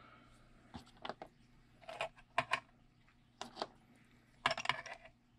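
Scattered clicks and crackles of small drone parts and their plastic packaging being handled and set down on a bench scale, with a longer crackling rustle near the end.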